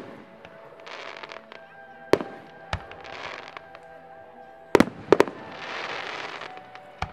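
Aerial firework shells bursting with sharp bangs, about five in all, two in quick succession about five seconds in. Between the bangs there are stretches of hissing noise as the stars burn.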